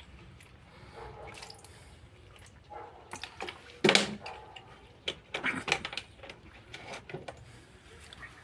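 Liquid splashing and dripping in a washing-machine tub in irregular short bursts, the loudest about four seconds in.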